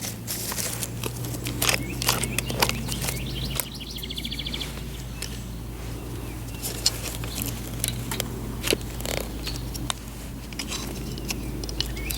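Clicks and knocks of an alligator saw's chain and housing parts being handled during reassembly, over a steady low hum. A bird trills briefly about four seconds in.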